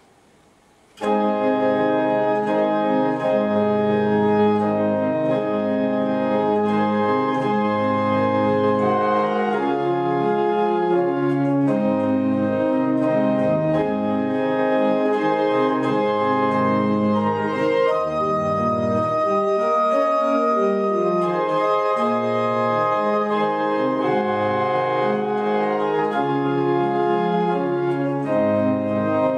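Church pipe organ playing, coming in about a second in with full sustained chords over a moving bass line.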